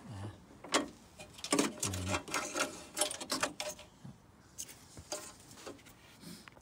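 Quick irregular plastic clicks and rattles as a fog-light wiring connector and its corrugated plastic loom are handled and fed through the plastic bumper opening, thickest in the first half and thinning out toward the end.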